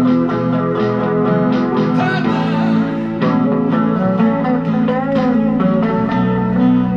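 Solid-body electric guitar picking a melody line, with a few notes bent or slid in pitch.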